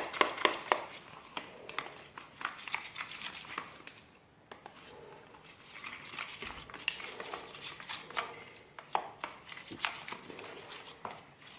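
A spoon stirring a mix of clear glue and white glue in a container, with irregular clicks and scrapes of the spoon against the container's sides and bottom, easing briefly about four seconds in.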